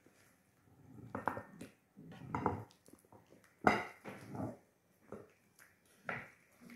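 Wooden spatula scraping and knocking against a metal pan and a ceramic plate while spooning out soft cooked food, in several scattered knocks, the loudest about three and a half seconds in.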